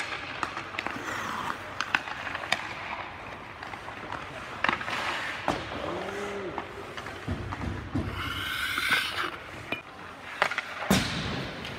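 Ice hockey skates scraping and carving on the ice, with sharp clacks of sticks hitting pucks scattered through. A longer skate scrape comes about eight seconds in, and a loud hit near the end.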